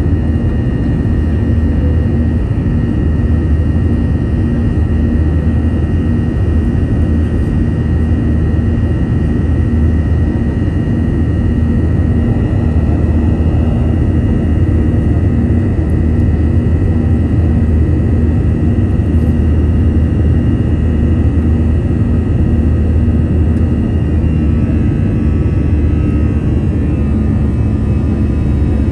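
Airbus A321 jet engines at takeoff power, heard from inside the cabin: a loud, steady roar with a steady whine over it. A few fainter tones shift in pitch near the end.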